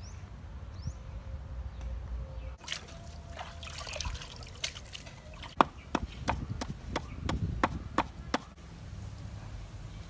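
Wooden pestle pounding in a clay mortar: a run of about nine sharp knocks, roughly three a second, starting about halfway through, over a steady low rumble.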